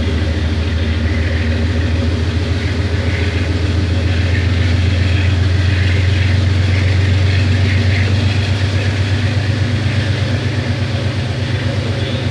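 GE 7FDL-12 twelve-cylinder diesel prime mover of a GEU-20 locomotive chugging under power, a loud, deep, steady rumble with a regular pulsing beat that becomes more distinct near the end, heard from inside a moving train.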